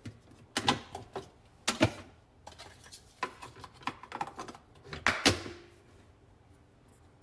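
A run of sharp plastic clicks and knocks from a single-serve coffee maker being handled. The loudest clunks come about half a second, two seconds and five seconds in, and a brief hiss follows the last one.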